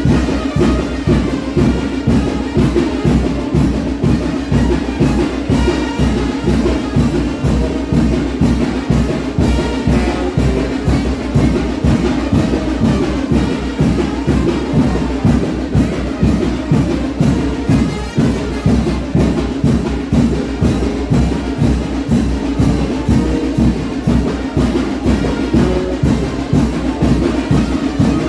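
Brass band playing fast chinelo carnival music, with a steady, driving drum beat under the horns.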